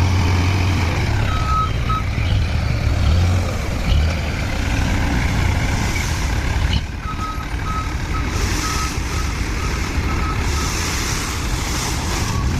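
Truck reversing alarm beeping in short runs of quick beeps, about a second in and again through the second half, over a low engine rumble that is strongest in the first few seconds and a steady wash of running water.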